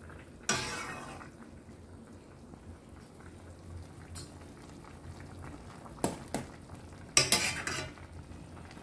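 Metal ladle scraping and clinking against the side of a stainless steel pot while stirring fish heads in simmering broth: a scrape about half a second in, two clinks around six seconds, and a louder run of scraping a second later, over a low simmer.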